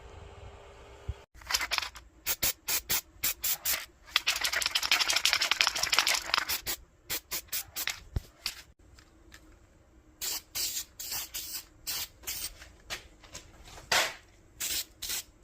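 Aerosol spray-paint can hissing in many short bursts, with one longer spray lasting a couple of seconds, as paint is applied to a 3D-printed wheel center cap.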